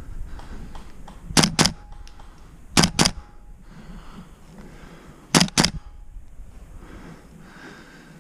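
Airsoft gun firing three quick double shots, each pair of sharp cracks about a fifth of a second apart.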